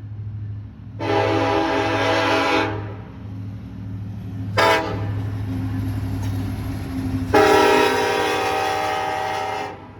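A BNSF freight locomotive's multi-chime air horn sounding a long blast, a short one and another long one, the grade-crossing signal, over a steady low rumble of the train.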